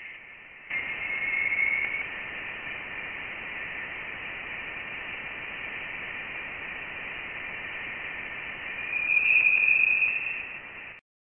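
Voyager 1's plasma wave instrument recording of interstellar space, converted to audio: a steady radio-like hiss with a thin whistling tone that swells about a second in and again near the end, then cuts off. The whistle is taken by scientists to come from the dense gas surrounding the probe after it left the solar system.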